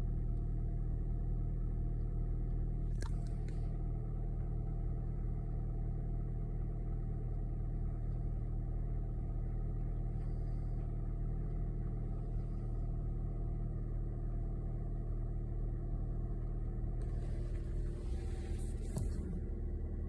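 A car driving, its engine and road noise making a steady low rumble. A sharp click comes about three seconds in, and a brief hiss swells up near the end.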